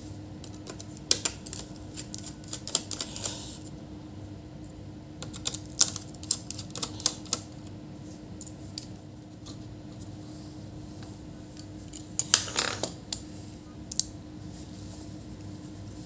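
Small screwdriver tapping, scraping and prying at the plastic case and connector clips of an opened HP ProBook laptop, giving scattered sharp clicks and short scrapes. A steady low hum runs underneath.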